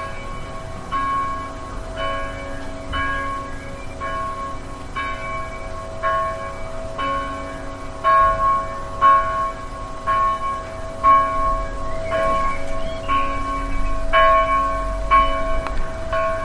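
Church bell tolling, struck about once a second with the tone ringing on between strokes. A low rumble rises under it in the second half.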